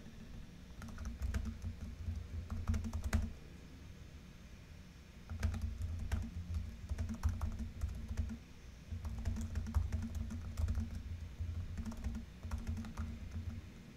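Typing on a computer keyboard: runs of quick key clicks, with a pause of about two seconds a little after three seconds in and a shorter pause past the middle.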